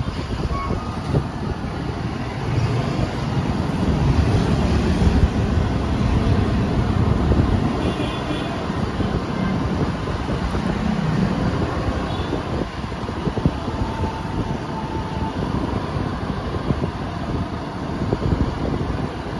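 Riding noise from a motorcycle moving through city traffic: steady wind rumble on the microphone, with road and traffic sound underneath.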